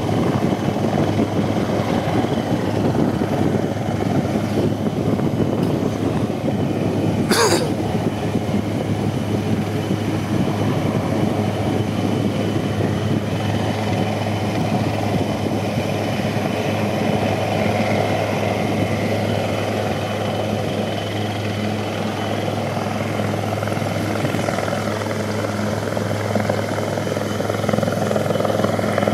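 Helicopter hovering overhead: a steady, unchanging noise of main rotor and engine.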